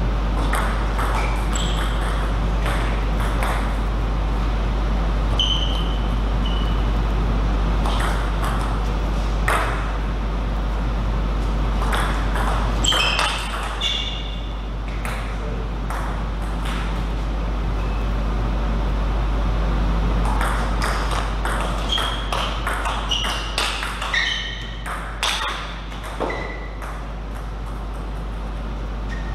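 Table tennis rallies: a plastic ball struck by rubber-covered paddles and bouncing on the table, heard as runs of sharp clicks and short pings with pauses between points, over a steady low hum.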